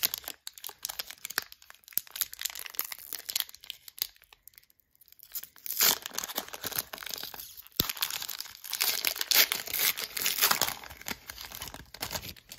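Crinkly plastic wrapper of a trading-card pack being torn open and crumpled, in irregular bursts of crackling.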